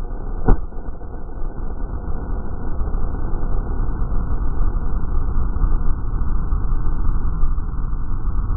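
A police flash-bang grenade going off with a single sharp bang about half a second in, followed by a steady rumble of background noise.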